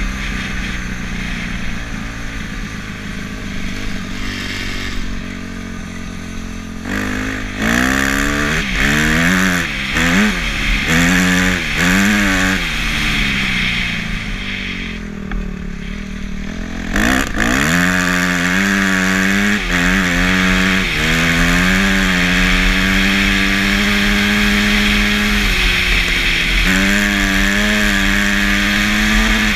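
Off-road motorcycle engine under way, with wind rush on the microphone. About seven seconds in, the engine note rises and falls several times with the throttle, then briefly drops away. It picks up again, climbs, and settles into a steady cruising note, rising once more near the end.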